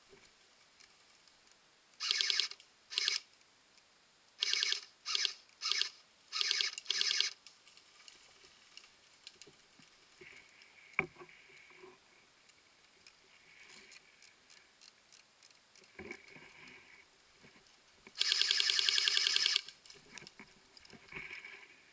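Airsoft electric guns firing on full auto: about seven short rattling bursts in quick succession during the first seven seconds, then one longer burst near the end. There is also a single sharp click about eleven seconds in.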